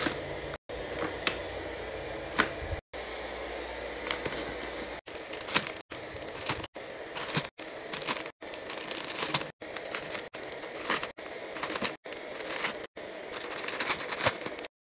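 Plastic food packets crinkling and tapping as they are dropped and pushed into a plastic basket bin: pasta-side pouches, then instant ramen packs. The handling comes as many quick clicks and rustles, cut off abruptly and restarted every second or so.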